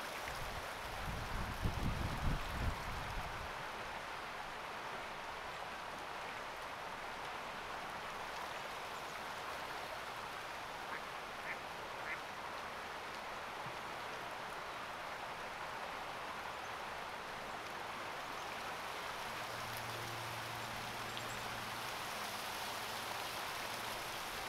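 A steady, even outdoor hiss like rain or running water, with a few low thumps in the first seconds and a few brief faint calls around the middle.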